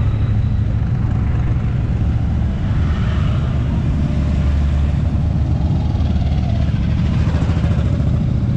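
Motorcycle engines running at low road speed, a steady low engine sound with no breaks.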